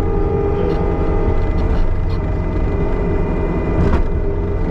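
Farm tractor engine running steadily under load while pushing snow with its loader bucket, with a thin steady whine over the low rumble and a brief knock about four seconds in.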